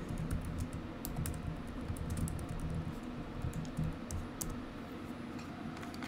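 Typing on a computer keyboard: irregular, scattered key clicks.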